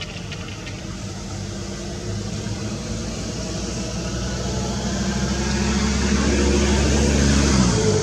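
A motor vehicle's engine running, growing steadily louder as it approaches, then dropping away sharply just before the end as it passes.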